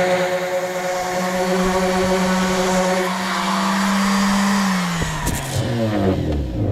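Electric power sander running steadily on wood, then switched off; its hum falls in pitch as the motor winds down near the end.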